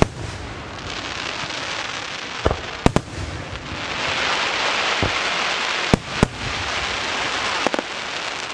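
Fireworks show: aerial shells bursting in a string of sharp bangs, some close together in pairs, over a continuous hiss that swells about four seconds in.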